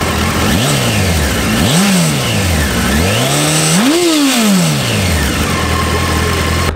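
Honda CBR900RR Fireblade's inline-four engine idling through its stock exhaust, blipped three times on the throttle. Each rev climbs higher than the last, and the third is the biggest. The engine falls back to a steady idle about five seconds in.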